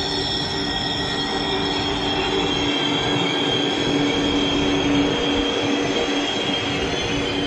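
ICE high-speed train rolling past, its wheels squealing on the rails: several steady high-pitched tones over the rumble of the wheels, a little louder about five seconds in as the rear power car goes by.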